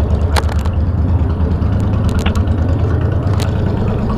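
Motorcycle engine idling with a steady low rumble, with a few short clicks over it.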